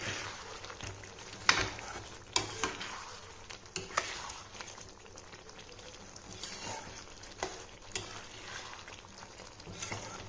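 Chicken gravy sizzling in a metal pan as a metal spatula stirs it, with sharp clicks and scrapes of the spatula against the pan, the loudest about one and a half seconds in.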